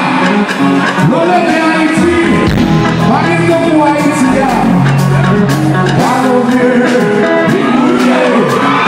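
Kompa band playing live and loud, with a lead singer over electric guitar and the rest of the band.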